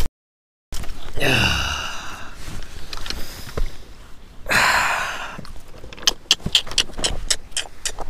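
A person slipping off a driftwood log onto riverbank rocks: the sound cuts out briefly at the start, then comes the scuffing and rustling of clothing against a chest-mounted camera, and a quick run of clicks and knocks from rocks and gear near the end.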